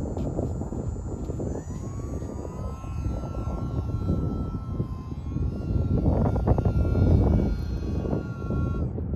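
Small electric RC airplane's brushless outrunner motor (E-flite BL180 on a 2S lipo) whining under throttle, its pitch shifting a couple of seconds in and stopping near the end, likely as the cold lipo battery gives out. Heavy wind rumble on the microphone is the loudest part.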